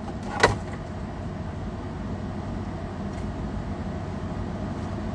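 Steady low rumble of a car idling, heard from inside the cabin, with one brief sound about half a second in.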